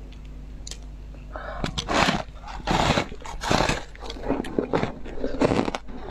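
Biting and chewing a block of frozen ice coated in passion fruit pulp: a run of loud, crackly crunches starting a little over a second in, then more crunching as the ice is chewed.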